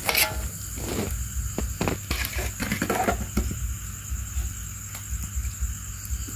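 Hot blanched mushrooms tipped from a bowl into an aluminium pot: a few wet knocks and patters in the first three seconds, over crickets calling steadily.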